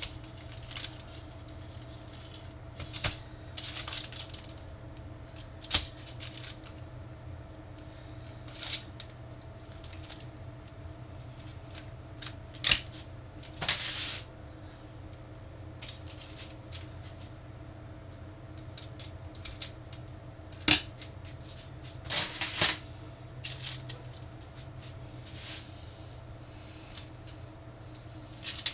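Small metal rib hangers clinking and rattling as they are picked up and hooked through racks of ribs in aluminium foil pans, in scattered irregular clicks with a few longer rustles. A steady low hum runs underneath.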